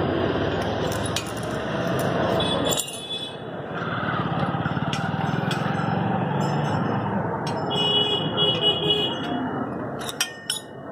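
Steady street traffic noise, with a vehicle horn sounding briefly around eight seconds in and a few sharp clicks near the end.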